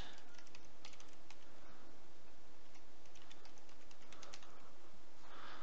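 Computer keyboard typing: scattered, faint keystroke clicks in quick runs, over a steady background hiss and faint hum.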